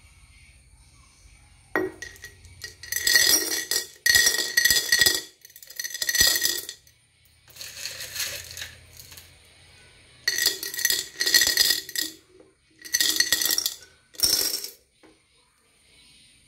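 Handfuls of small coloured decorative pebbles dropped into a glass jar, clattering and clinking against the glass and each other. There are about eight separate rattling pours with short pauses between them.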